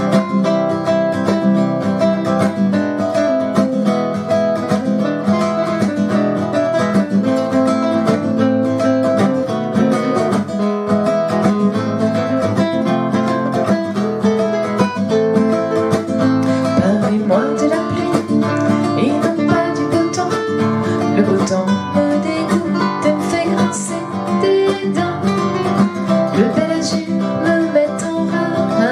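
Two acoustic guitars, one a nylon-string classical guitar, playing a strummed rumba accompaniment in A minor, with chords moving through Dm, G7, C, E, Am, B7, F.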